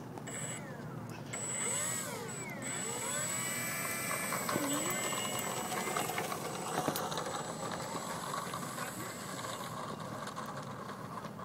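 Tacon 46 brushless electric motor of an RC Pitts biplane spinning its propeller on the ground, its whine sweeping up and down several times as the throttle is worked, then running more steadily as the plane taxis.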